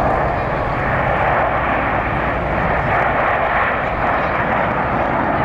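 Jet aircraft flying past: a loud, steady rushing engine noise.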